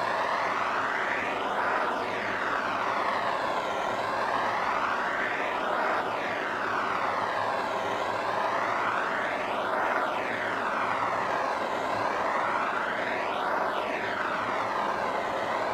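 Bernzomatic propane torch on a 1-lb cylinder burning with a steady hiss as its flame is swept up and down a pine board to char the wood. The tone of the hiss swishes about every two seconds with each stroke.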